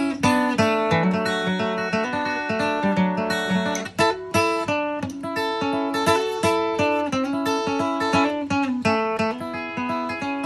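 Acoustic guitar played solo: a steady run of picked notes and strummed chords, with a brief break about four seconds in.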